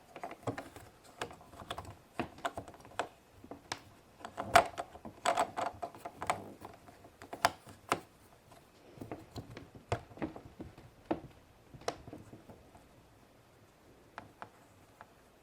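Irregular clicks and taps of plastic Play-Doh molds and tools being handled and pressed. The clicking is busiest in the middle and thins out near the end.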